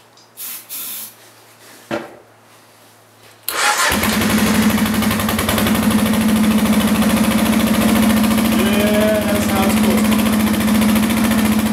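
A 2001 Kawasaki KLR650's single-cylinder four-stroke engine fires about three and a half seconds in, starting for the first time after a top-end rebuild, and settles into a steady idle. A few faint clicks from handling the bike come before it catches.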